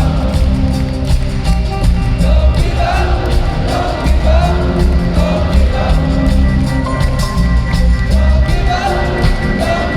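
Live rock band performing in concert: full band playing with a steady beat, and a singer's voice over it.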